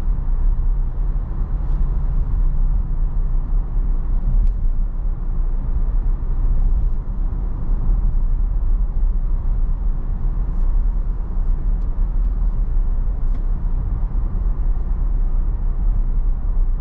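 Steady low road and tyre rumble heard inside the cabin of a moving Tesla electric car.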